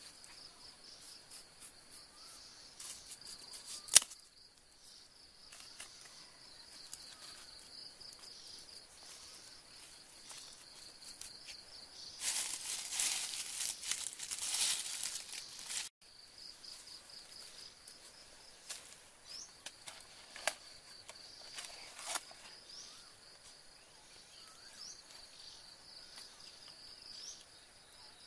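Dry sticks being handled and laid on leaf litter: a sharp knock about four seconds in, a few smaller clicks, and a stretch of loud rustling in the middle. Behind it an insect trills steadily in quick pulses.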